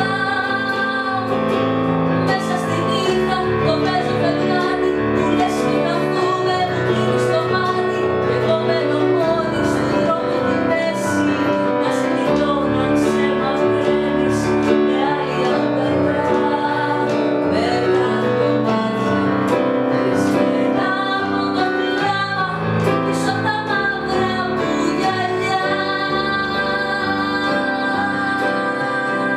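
A woman singing a Greek song to electronic keyboard accompaniment.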